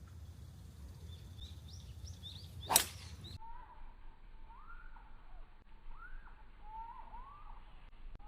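A golf club cracking into the ball on a tee shot, once, about three seconds in. Small birds chirp throughout with short rising-and-falling whistled calls.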